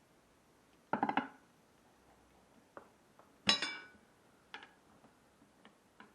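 Metal tools clinking together, a quick rattle of clinks about a second in, then one louder ringing metallic clang that dies away, followed by a few light clicks.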